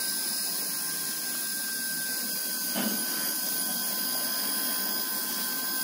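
Xiaomi three-head rotary electric shaver with a Mabuchi 260 motor, running steadily: a high whine over a buzzing hum. There is a brief thump about three seconds in.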